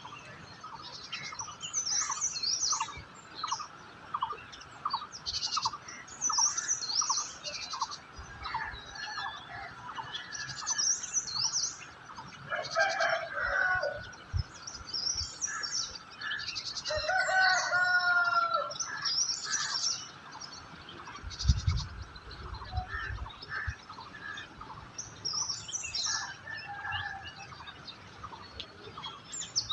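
Several wild birds chirping and singing over one another, with many short high chirps throughout. One bird repeats a note about twice a second for the first several seconds. Two longer, lower calls come around the middle, and a brief low rumble follows a few seconds later.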